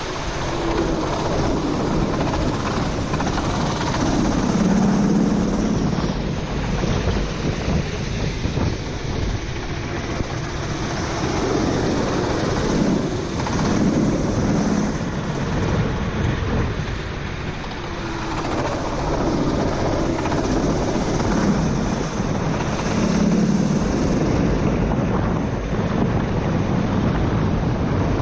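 Four-stroke racing kart engine heard onboard, its revs rising and falling several times, under heavy wind noise on the microphone and the hiss of spray from wet tyres.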